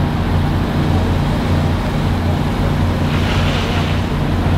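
Fire truck's engine running steadily with a deep, continuous rumble, with a short hiss about three seconds in.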